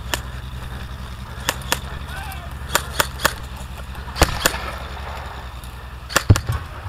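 Scattered airsoft gunfire: about a dozen single sharp shots, some in quick pairs, with the loudest cluster and a heavier bang about six seconds in, over a steady low rumble.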